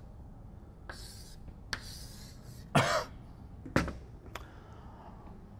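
Chalk scraping on a blackboard in a few short strokes as a box is drawn round an equation, then a short cough about three seconds in and a sharp knock a second later.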